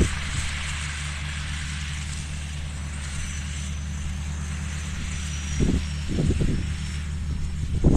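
An engine running steadily at a constant speed, with gusts of strong wind buffeting the microphone a couple of times in the second half.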